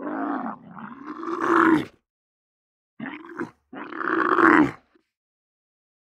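Camel grunting in three separate calls: a long one of about two seconds, then after a pause a short call and a longer one close together, each cut off abruptly.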